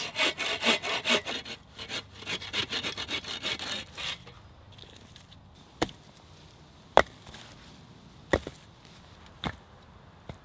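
Folding frame saw cutting through a fallen silver birch log in quick back-and-forth strokes, stopping about four seconds in. Then four sharp wooden knocks, a second or so apart, as cut birch rounds are dropped onto a pile.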